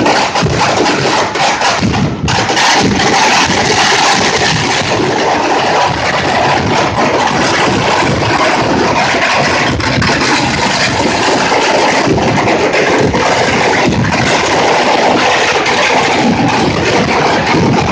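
Ground-level fireworks barrage going off without a break: a loud, dense, continuous mass of rapid bangs and crackles.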